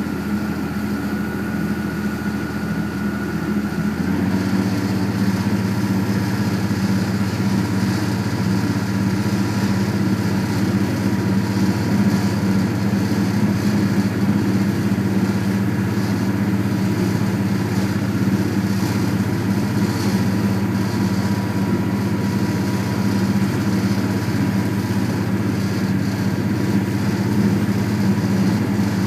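Boat engine running steadily. About four seconds in its note changes and it gets a little louder, then it holds steady.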